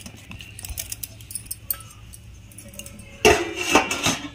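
Light clinks of hands working dough in a stainless steel bowl, then about three seconds in a burst of louder metallic clattering and jingling as the steel dishware is handled.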